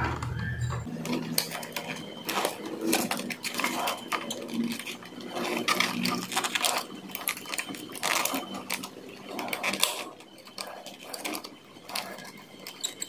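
Irregular scraping, rustling and clicking as a gloved hand twists stranded copper wire ends together into a splice.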